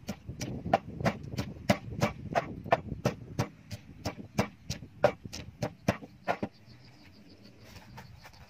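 Wooden pestle pounding in a large wooden mortar, a steady run of knocks about three a second that stops a little over six seconds in.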